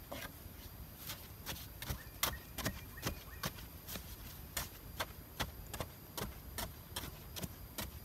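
A blade digging and chopping into sandy soil and small roots at the base of a tree trunk, sharp strokes about two to three a second.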